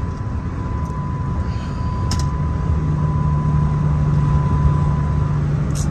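Dodge Charger Scat Pack's 392 HEMI V8 and road noise heard from inside the cabin while driving: a steady low drone that grows a little louder and rises slightly about three seconds in.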